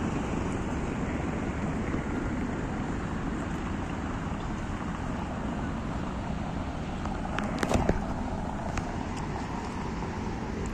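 Steady traffic noise from cars on a busy city roundabout, with some wind on the microphone. A few short knocks about seven and a half seconds in.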